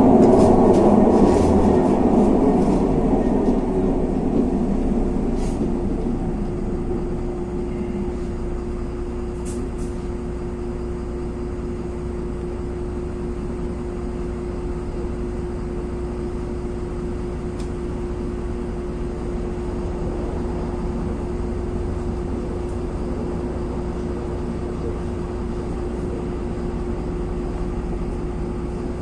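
Inside a LiAZ 6213.22 articulated city bus: the loud running noise dies down over the first five seconds or so, leaving a steady low hum with one constant mid-pitched tone, as of the bus standing with its engine idling.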